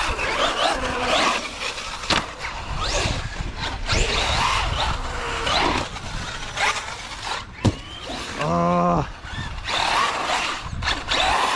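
Traxxas Sledge RC monster truck driving hard, its 1650 kV brushless motor whining up and down in pitch as it speeds up and slows, over a steady rush of tyre and chassis noise.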